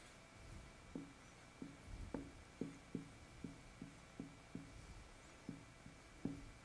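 Faint writing on a board: a quick series of short strokes and scratches, about three a second, as a phrase is written out, the strongest about two seconds in and near the end.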